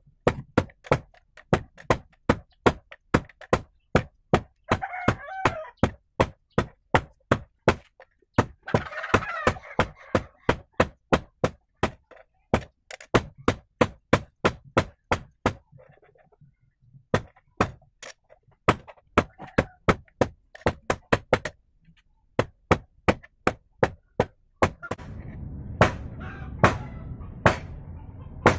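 Hand hammer striking a red-hot bar of bearing steel on an anvil while forging a knife: quick, sharp blows about three or four a second, in runs broken by short pauses.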